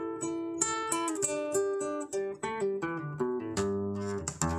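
Background music: an acoustic guitar playing a melody of plucked notes, with a few quick strums near the end.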